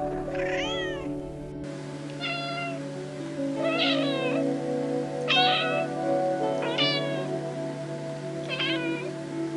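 Domestic cats meowing over background music. There is one meow about a second in, then a grey tabby meows five times, roughly every second and a half.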